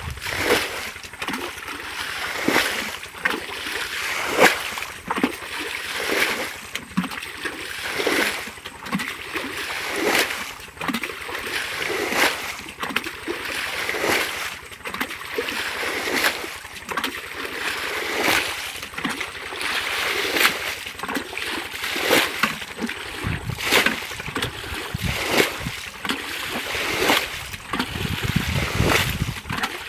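Water splashing over and over in short strokes, about one to two a second, as when water is scooped or slapped by hand during fishing. A low rumble joins in for the last several seconds.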